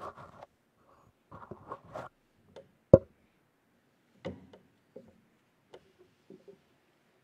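Scattered small knocks and rustles, with one sharp, loud knock about three seconds in.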